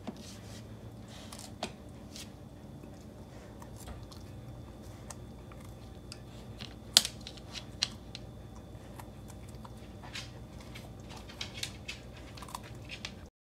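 A Samoyed dog chewing a thin green vegetable: scattered crisp crunching clicks, the loudest about seven seconds in. The sound stops abruptly just before the end.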